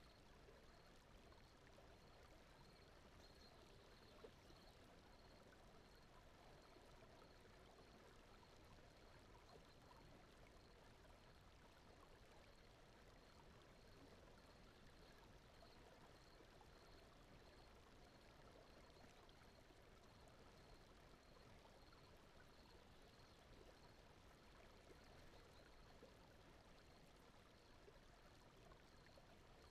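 Very faint, steady stream-like rushing noise from a sleep-ambience bed, with a faint, evenly repeating high chirp running through it.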